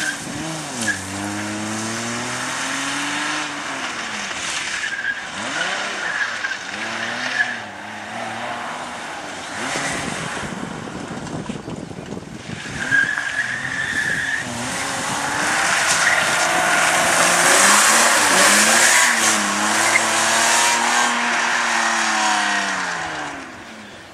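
Rally car engine revving hard, its pitch rising and falling again and again as it is driven flat out around a tight course, with tyres squealing in the corners. The squeal is heard briefly several times and is longest and loudest about two thirds of the way through.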